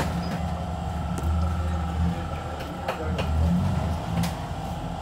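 Metal tool knocking a few times on the engine during oil-change work, sharp strikes about three seconds in and again a second later, over a steady low mechanical hum.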